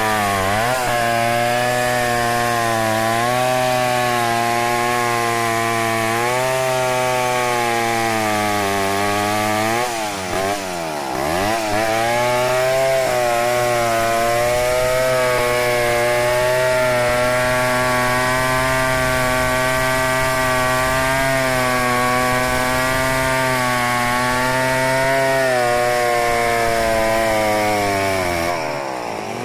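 Stihl 070 two-stroke chainsaw running at full throttle under load, ripping lengthwise along a log. The engine note wavers with the cut, dips and climbs back briefly about ten seconds in, and falls as the throttle is released near the end.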